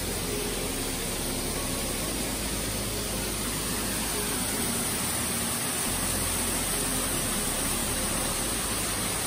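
Water from an indoor waterfall pouring down a stone wall: a steady, even rushing hiss.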